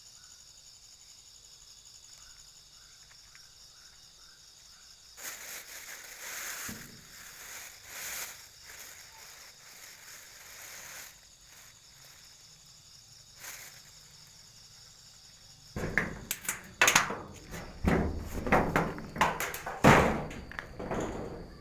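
A steady, high-pitched cricket-like trill that has been heard as strange, which the listeners doubt is really a cricket. Rustling noise comes in bursts in the middle, and near the end a rapid run of loud knocks and thumps, like handling and footsteps, drowns it out.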